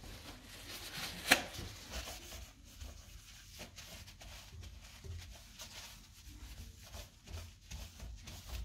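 Gloved hand wiping a toilet bowl's rim with a cloth: faint, irregular rubbing and rustling, with one sharp click about a second in.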